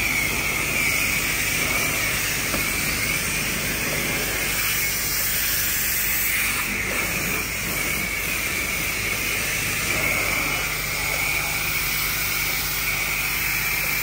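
High-pressure washer spraying water onto a car's bodywork: a steady hissing spray with a wavering high edge over a low, even pump hum.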